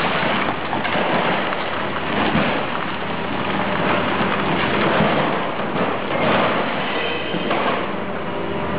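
Loud, steady rumbling and clattering noise of heavy machinery at work in a car-dismantling yard.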